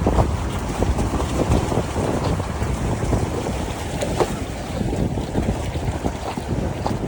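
Wind-driven lake waves lapping and splashing in quick irregular slaps, over a steady low rumble of wind buffeting the microphone.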